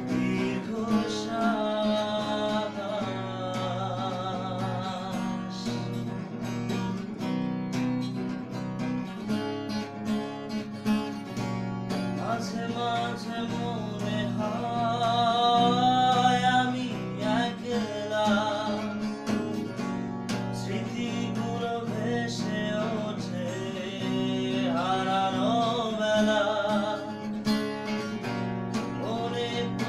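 A man singing with vibrato while strumming chords on an acoustic guitar.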